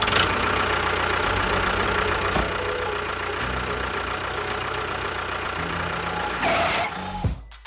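Small motor of a homemade mini construction vehicle running steadily with a faint high whine, changing briefly about six and a half seconds in and cutting off just before the end.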